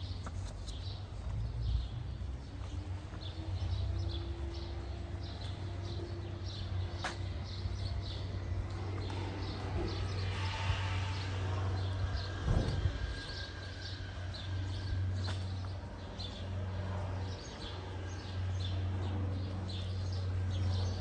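Footsteps walking at a steady pace on a brick pavement, about two steps a second, over a steady low hum of street ambience, with a brief louder thump about halfway through.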